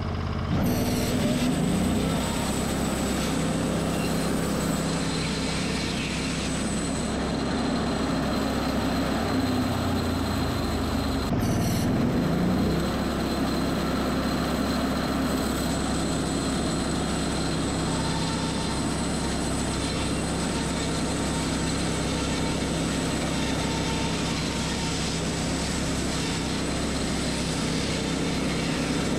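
Portable band sawmill running steadily under load as its band blade cuts across a bundle of upright log sections, slicing off wood cookies.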